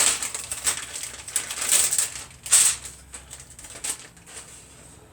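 Plastic packaging of sliced cheese crinkling and rustling as it is handled, in several uneven bursts, the loudest at the start and about two and a half seconds in.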